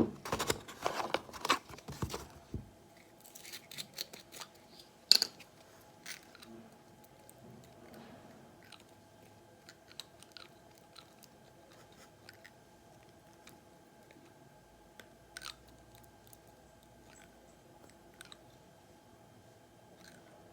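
Handling noises: a burst of rustling and clicking, then sparse soft clicks and taps over a faint steady hum.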